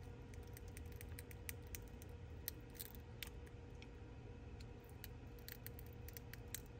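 Thin metal pry blade scraping and levering broken iPhone 12 Pro Max back glass off the frame: faint, irregular small clicks and ticks of glass pieces cracking and snapping loose.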